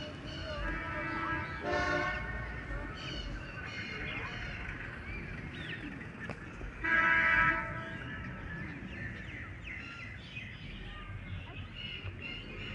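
A horn blasting twice, a short blast about two seconds in and a louder, longer one about seven seconds in, with fainter shorter toots between, over a steady low rumble and scattered bird chirps.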